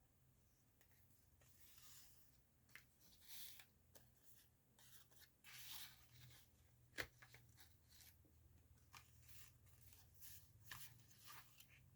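Faint rustling and scraping of a paper junk journal's pages and tags as they are handled and turned, with one sharp click about seven seconds in, over a low steady hum.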